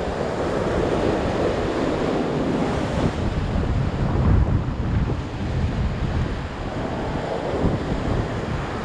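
Ocean surf washing over and against a rock ledge, a steady rush that swells loudest about four seconds in, with wind buffeting the microphone.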